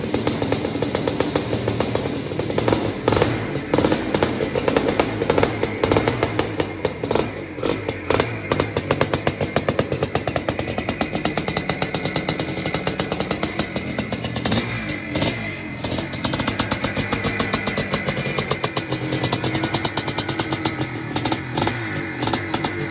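1981 Maico 490 Mega 2's single-cylinder two-stroke engine running, its exhaust popping in rapid even pulses. The pitch rises and falls as the throttle is worked.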